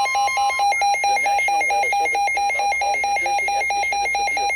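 Weather alert radio sounding its alarm: a rapid, steady two-pitch warbling beep, about four cycles a second. A continuous NOAA Weather Radio warning tone near 1 kHz under it ends about half a second in. A broadcast voice then starts reading the severe thunderstorm warning faintly beneath the beeping.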